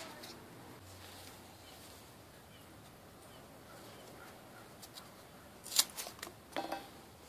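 A few sharp metal clicks and a short rattle from a razor blade being handled and fitted in its holder, the loudest click a little before the end.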